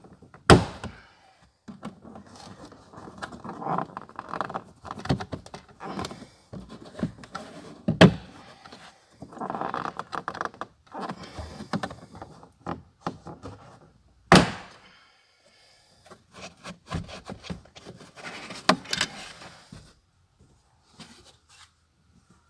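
Plastic rear pillar trim panel of a BMW E39 being pulled off by hand: sharp snaps as its retaining clips let go, just after the start, about eight seconds in and about fourteen seconds in, with plastic rubbing and scraping between.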